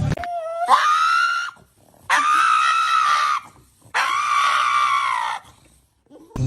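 A dog giving three long, high-pitched cries in a row, each about a second long with short pauses between; the first slides up in pitch as it starts.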